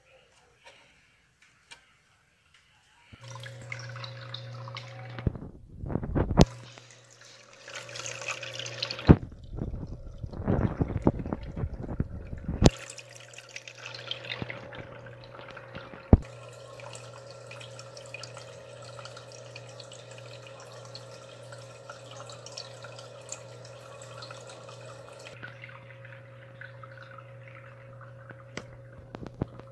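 An aquarium filter's electric pump starts humming steadily about three seconds in, with water pouring and splashing back into the tank. The splashing is loudest in bursts between about five and thirteen seconds in, runs steadily after that, and eases near the end while the hum goes on.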